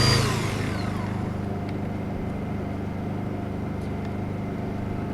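Portable Honda generator engine running steadily under load. In the first second an electric rescue tool's motor is switched off and winds down, its whine falling in pitch and fading.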